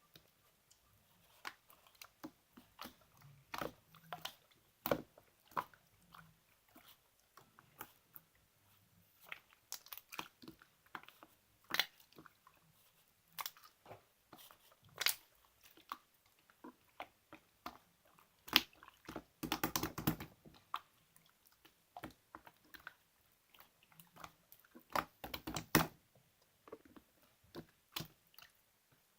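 Clear slime being squeezed and poked by hand, making irregular sharp clicks and pops, with two denser runs of crackling about two-thirds of the way through and near the end.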